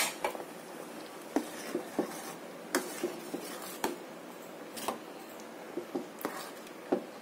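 A metal ladle stirring thick payasam in a metal pot, stirring in melted ghee, with irregular sharp clinks and scrapes each time it knocks the pot's side and bottom.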